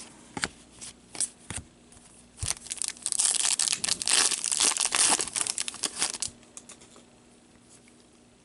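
A trading card pack wrapper being torn open and crinkled for about four seconds, after a few light taps of cards being handled.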